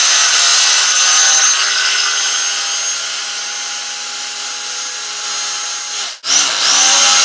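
Electric carving knife running, its reciprocating blades cutting through slab foam with a steady motor hum and a rasping hiss. The motor stops for a moment about six seconds in, then starts again, its pitch rising as it spins up.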